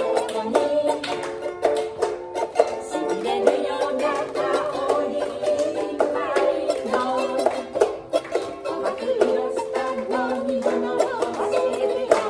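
Andean folk music playing: a small plucked string instrument strummed in quick, bright strokes under a melody line of held notes.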